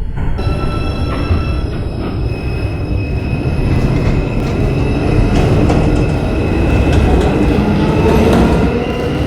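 R142 subway train moving off, its wheels squealing on the rails with several steady high tones over a loud rumble of running noise that builds and eases slightly near the end.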